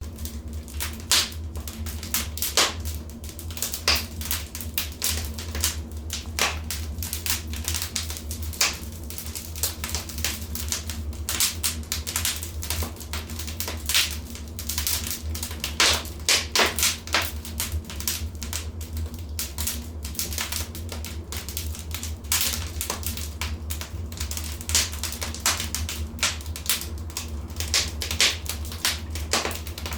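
Wood fire in a fireplace crackling: irregular sharp pops and snaps, several a second at times, over a steady low rumble.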